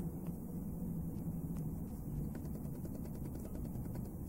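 Faint light clicks from an opened automatic wristwatch with a half-rotor movement being turned in the hand, coming thickest about halfway through, over a low steady hum.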